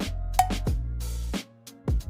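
Background music with a drum beat and bass line, dropping out briefly about one and a half seconds in.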